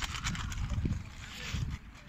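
Wind rumbling on the microphone, with faint crinkling of a plastic drink bag being pinched and squeezed by hand.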